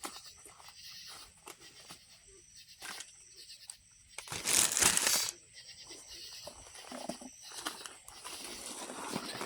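Hands working fire-starting tinder, fluffing it up: scattered small clicks and light rustling, with one louder scraping rustle about four and a half seconds in that lasts about a second.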